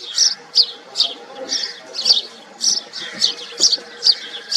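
House sparrow chirping: a steady series of short, high chirps, about two or three a second.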